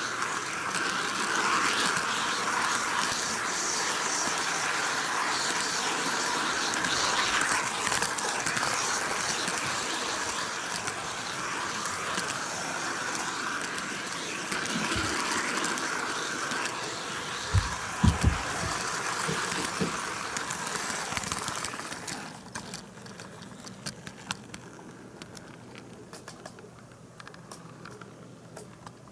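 HO-gauge model train camera car rolling along the track close to the microphone: a steady rushing noise of small metal wheels on the rails, with a few low knocks a little past the middle. About three-quarters of the way through the noise drops sharply as the camera car comes to rest, leaving the fainter clicking of the model railcars running on the layout.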